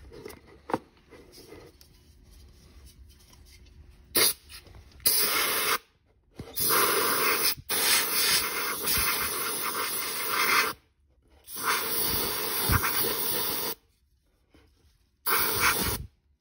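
Aerosol can of de-icer spraying in bursts into a plastic car airbox, onto its cold-start flap: a short puff about four seconds in, then four longer bursts of hiss, the longest about four seconds, each cutting off sharply.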